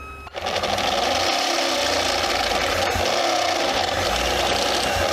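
Power drill running a step drill bit through a sheet-metal panel, cutting and widening a hole. It sets in about a third of a second in and then runs steadily.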